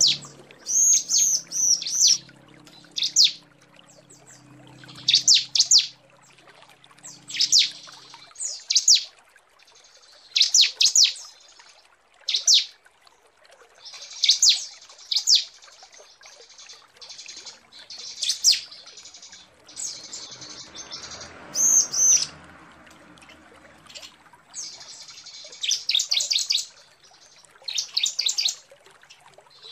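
Female bar-winged prinia (ciblek) calling to attract a male, as used for luring. It gives short bursts of rapid, high chirping notes, repeated every second or two with brief pauses.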